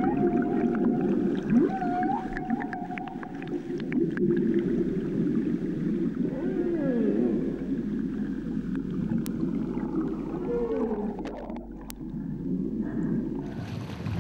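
Humpback whale song: a run of calls that slide up and down in pitch, with a higher note held through the first few seconds.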